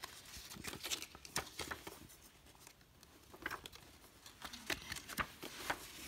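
A paper booklet and cardboard packaging being handled and pulled out of a box: soft, irregular rustles, crinkles and taps.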